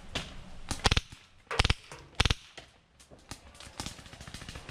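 Paintball markers firing: quick groups of sharp pops about a second in and twice more shortly after, with fainter scattered shots from further across the field.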